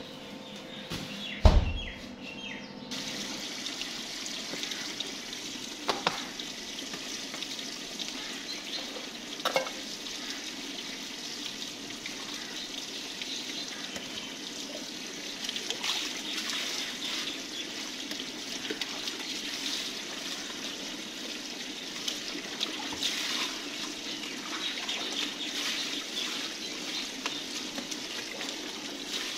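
Water splashing and trickling as rice and vegetables are washed in metal and plastic bowls at an outdoor tap, with a few knocks of a cup against the bowls. A loud thump about a second and a half in.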